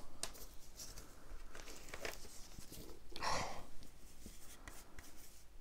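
Handling of plastic CD cases and packaging: light clicks and rustling, with a louder rustle about three seconds in.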